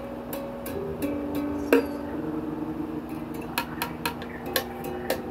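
A few plucked string notes ringing and changing pitch over a steady low hum, with many sharp clicks and taps scattered through and one louder strike a little under two seconds in.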